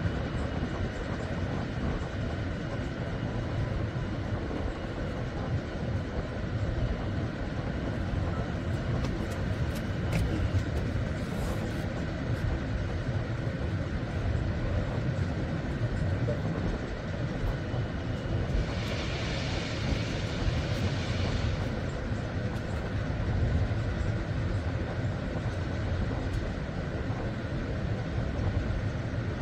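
Steady low rumble of a ship's machinery, with a faint steady hum above it. About two-thirds of the way through there is a brief hiss lasting a couple of seconds.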